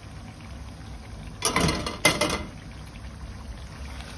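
Chicken adobo simmering in a pan on a gas hob over a steady low rumble, broken by two loud clattering bursts about a second and a half and two seconds in as the metal pan lid and spatula are handled.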